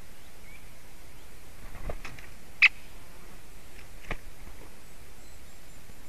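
A few sharp, short knocks and clicks over a steady outdoor hiss, two close together about two seconds in, the loudest just after, and another about four seconds in: a juvenile great spotted woodpecker at the nest.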